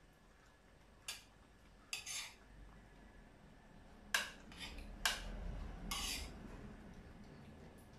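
Cutlery clinking against a dinner plate during a meal: about half a dozen short, light clinks, spread irregularly, the sharpest about four and five seconds in.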